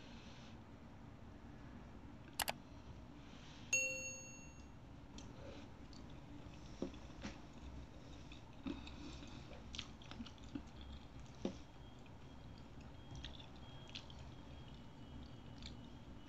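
Faint close-up chewing of chewy tapioca meatballs with crunchy cartilage bits, heard as scattered small clicks. About four seconds in comes one ringing ding, typical of cutlery striking a ceramic bowl.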